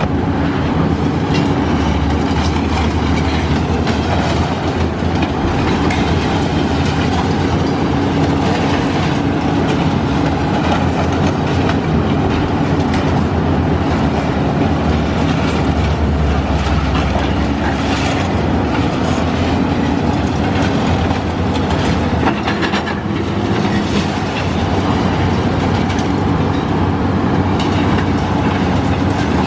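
Caterpillar high-reach demolition excavator running hard, its diesel engine drone steady under a continuous crunching and clattering of concrete and steel debris as it breaks into the building.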